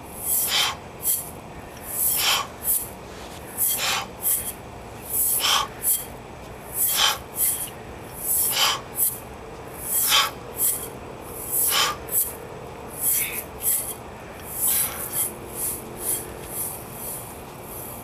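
A woman breathing hard in a steady rhythm while swinging a mace: a strong breath followed by a lighter one about every one and a half seconds.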